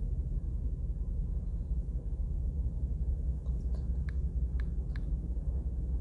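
Three short clicks about half a second apart, in the second half, as digits are typed on a phone's on-screen number keypad. They sit over a steady low background hum.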